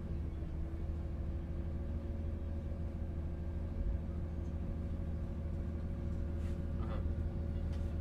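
Riding inside a city bus: a steady low rumble of engine and road with a constant hum over it, and a couple of faint rattles shortly before the end.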